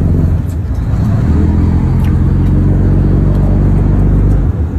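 Sport-fishing boat's engine running steadily at low speed, a low, even hum that dips briefly near the end.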